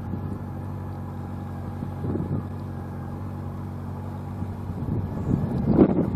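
An engine running steadily, a low hum that holds one constant pitch. Brief louder bursts of noise cut in about two seconds in and again near the end.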